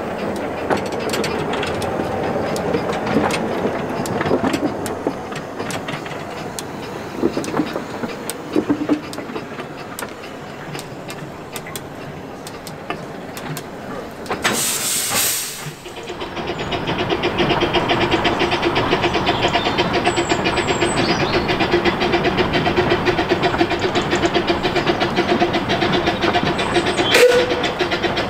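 Miniature steam locomotive hissing steam, with a loud blast of steam about halfway through, then a steady, even rhythm as the train runs.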